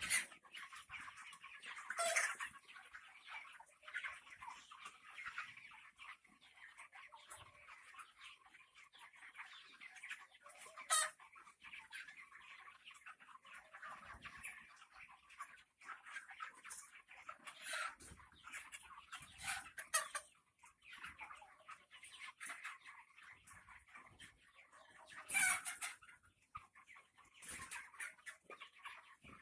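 A large flock of young broiler chickens: a steady mass of chirping and clucking, with a few louder calls standing out above it now and then.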